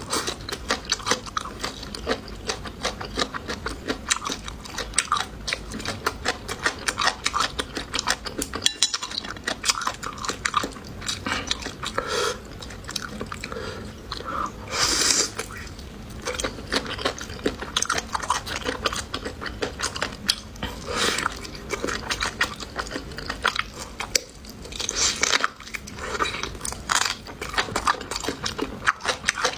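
Close-miked eating: chewing and crunching food, with many irregular clicks of utensils against dishes and a few louder hissy bursts.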